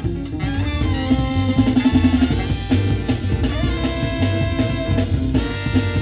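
Club jazz track with drum kit and brass, played through a custom car audio system of Technics tweeters, FaitalPRO mid and midbass drivers and Luxman amplifiers, heard in the car's cabin.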